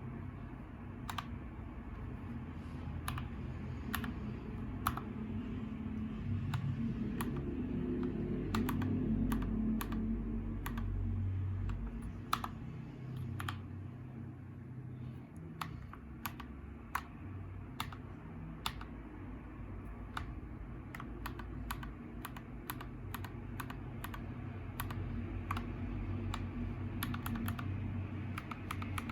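Typing on a mechanical keyboard with Gateron Yellow Pro linear switches: irregular key presses, slow and spaced at first, then quicker runs of keystrokes near the end, over a steady low background rumble.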